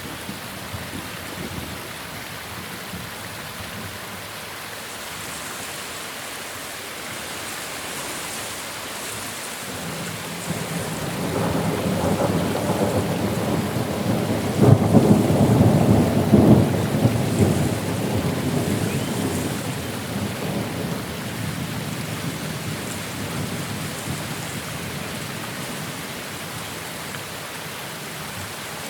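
Steady rain with a long roll of thunder that builds about ten seconds in, is loudest near the middle and slowly fades away.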